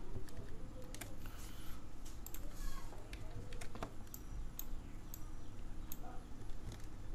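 Irregular clicks of a computer keyboard and mouse, over a steady low hum.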